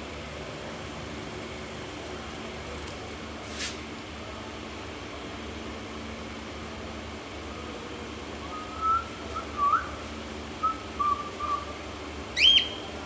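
Cockatiel whistling: a string of short, wavering whistled notes starting about two-thirds of the way in, then one loud, rising whistle near the end, over a steady low background hum.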